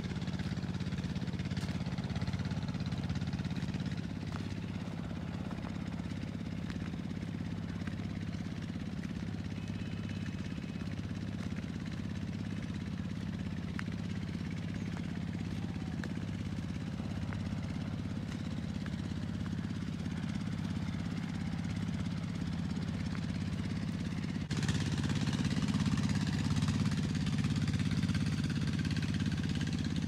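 An engine running steadily at a constant speed, a low hum that does not rise or fall, turning abruptly louder about 24 seconds in.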